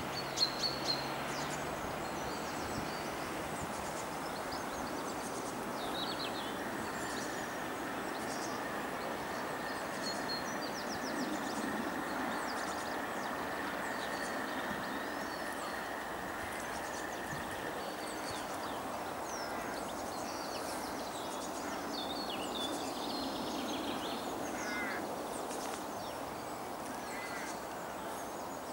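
Many short bird calls and chirps all through, over a steady outdoor rushing noise. A couple of short knocks sound in the first second.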